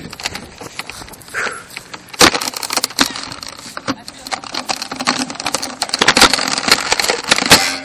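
Dense, irregular clicking and rattling handling noise from a Nerf Quadshot blaster, with a camera mounted on it, being jostled and swung as the player moves.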